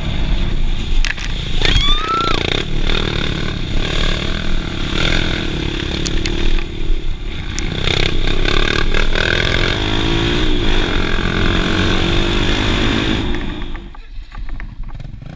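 Dirt bike engine running and changing pitch as it rides along a dirt trail, with steady rushing noise. The sound drops away sharply near the end.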